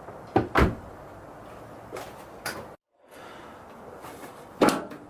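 A handful of sharp clunks and knocks from metal body parts and tools being handled while the front wing of a car is taken off and fitted: two close together about half a second in, two lighter ones around two seconds, and a loud one near the end. The sound drops out for a moment around the middle.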